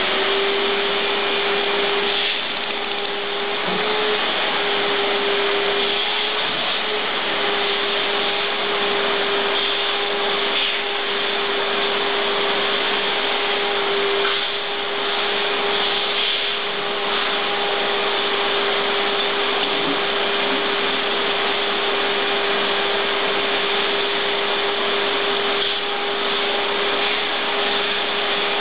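Running machinery: a steady whirring hiss with a constant humming tone, unbroken throughout.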